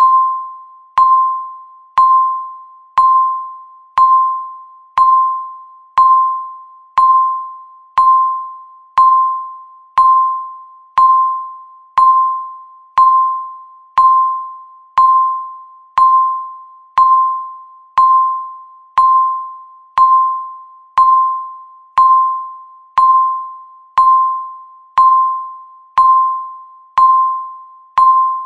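Electronic countdown-timer beep: a single tone around 1 kHz sounding once every second, each beep starting sharply and fading away before the next.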